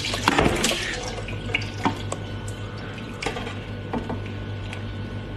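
Wet, squelching bite into a large jelly-like food covered in chili sauce: a dense burst of slurping and sucking in the first second, then scattered wet smacks and clicks of chewing. A steady low hum runs underneath.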